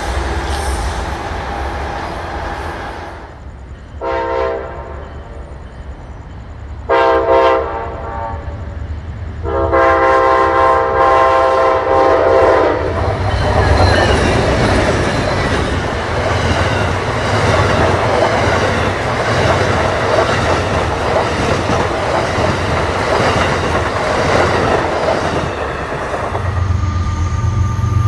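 An Amtrak passenger train with a GE Genesis locomotive sounds its horn three times: two short blasts, then a long one of about three seconds. The train then passes close by with a loud, steady rumble and clatter of wheels and cars. Near the end a diesel locomotive's steady low engine hum takes over.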